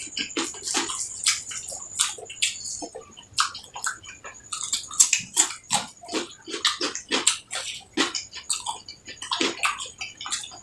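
Close-up wet chewing and lip-smacking of a person eating rice and curry, in quick, irregular smacks several times a second.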